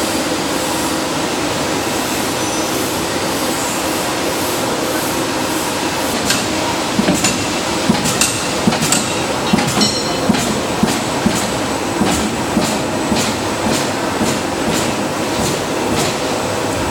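Cross-shaft crank-driven precision power press running, with a steady mechanical hum from its drive. From about six seconds in, sharp clacks come roughly twice a second as the press cycles.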